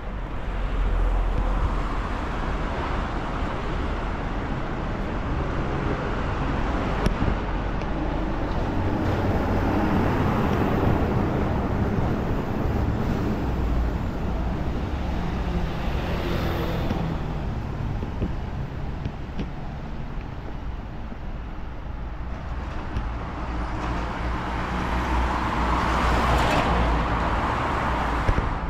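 Road traffic on a wide city arterial road: cars and other motor vehicles pass in a steady stream, with a low engine hum. Louder passes swell and fade several times, the loudest near the end.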